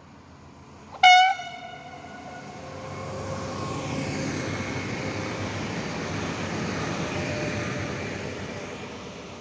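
A train sounds one short toot on its horn, then passes with a rumble that swells, holds and fades away.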